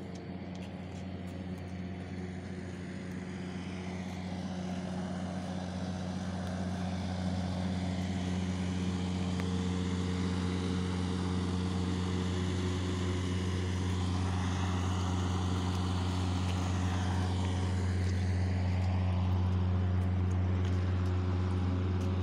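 A steady low machine hum with a fixed pitch and a stack of overtones, growing gradually louder.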